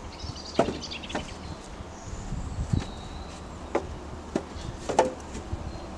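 Wooden bed poles knocking and clattering against each other and the log frame as they are lifted and shifted into place, about six sharp knocks at irregular intervals.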